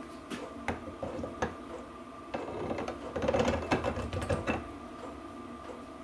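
Steel clicks and clinks of an adjustable bearing puller being fitted and set on a differential carrier, a few separate taps early on, then a quick rattling run of small metal clicks in the middle as its legs and crossbar are worked into place.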